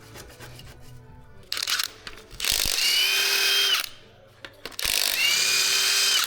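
Cordless power tool, such as a battery impact wrench, run in two bursts of about a second and a half each, spinning up to a steady whine and cutting off, undoing chassis bolts; a brief shorter burst comes before them.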